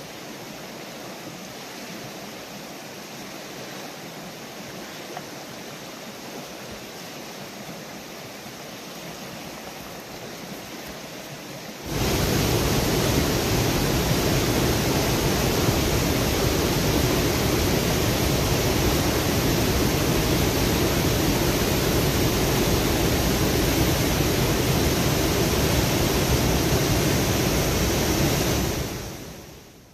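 A river running high in spring flood, a steady rush of fast water. About twelve seconds in it jumps abruptly much louder and fuller, as if much closer to the rapids, then fades out near the end.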